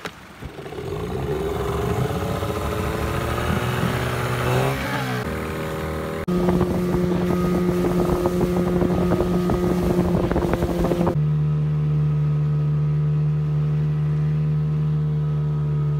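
Small Johnson outboard motor on an inflatable boat revving up over the first couple of seconds, then running steadily at speed. Its pitch jumps abruptly a few times.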